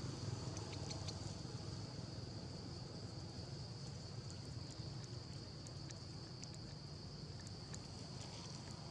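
Steady high-pitched insect drone over a low background rumble, with a few faint scattered ticks.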